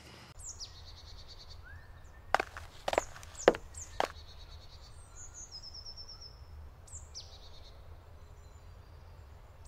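Birds singing outdoors: short high chirps and a quick descending trill over a steady low rumble. About two seconds in, four sharp taps come roughly half a second apart.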